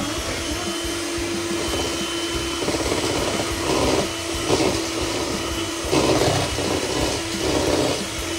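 Electric hand mixer running at a steady speed, its beaters creaming sugar and margarine in a stainless steel bowl for cake batter. A steady motor hum, with the noise swelling in short uneven spells through the second half.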